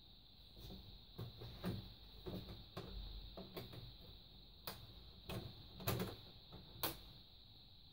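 Hands handling the plastic diffuser sheet of an LED TV's backlight in its frame: a string of light clicks and taps over soft rustling, with a few sharper clicks in the second half.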